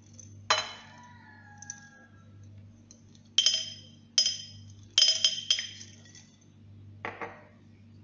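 Small brewer's yeast tablets dropping onto a porcelain plate, about eight separate clinks with the plate ringing briefly after some of them. Several land in quick succession midway through.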